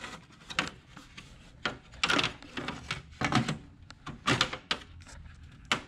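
Plastic side cover of an HP LaserJet 4250 laser printer being slid and seated onto the printer's metal frame: a run of irregular knocks, clacks and short scrapes of plastic against metal.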